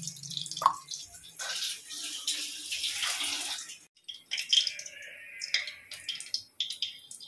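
Hot oil sizzling and crackling in an iron kadai on a gas stove, with sharp clicks, after a stretch of hissing in the first half.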